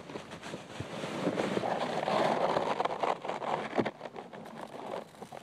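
Muffled rustling and scraping of cloth against a covered phone microphone, rising to its loudest in the middle, with a few small knocks.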